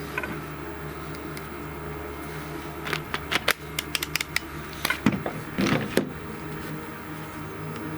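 Sharp plastic clicks and knocks of a cordless DeWalt angle grinder and its FlexVolt battery being handled, a cluster of them in the middle, over a steady low hum. No motor spins up.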